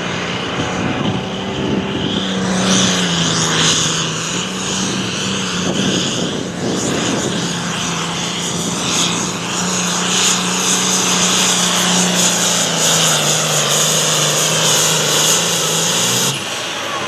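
Hot Farm class diesel pulling tractor running hard through a pull. A steady low engine note sits under a loud high-pitched rush, and the sound stops abruptly near the end.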